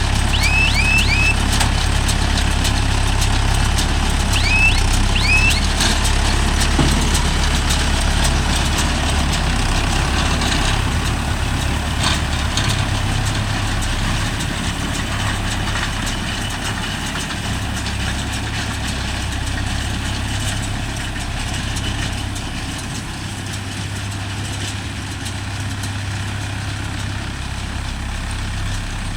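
Diesel engine of a Mahindra Yuvo Tech Plus 585 tractor running steadily, a low drone that eases off a little in the second half. A few short, high rising chirps sound in the first few seconds.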